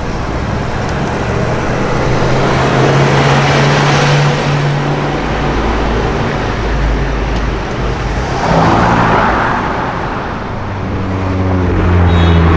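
Car engines and tyre noise in city traffic, with cars driving past. Near the end, one engine's note rises as it accelerates.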